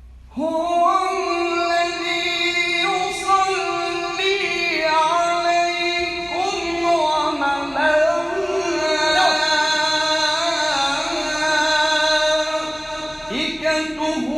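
Solo male voice reciting the Quran melodically in a maqam, with long held notes that waver and turn in ornaments, and a brief pause for breath near the end.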